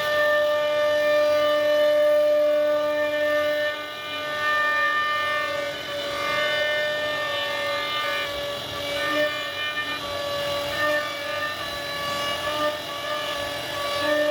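CNC router spindle running at high speed while carving wood, a steady high-pitched whine that dips and shifts slightly as the bit's load changes.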